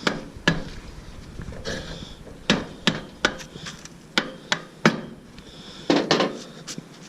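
Sharp metallic knocks and clinks at irregular intervals, about a dozen in all, as the rear wheel axle of a 2015 BMW S1000RR is worked through the wheel and swingarm.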